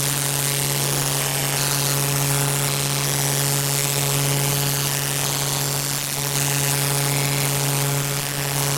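A steady low-pitched buzz at one unchanging pitch, with a loud hiss above it.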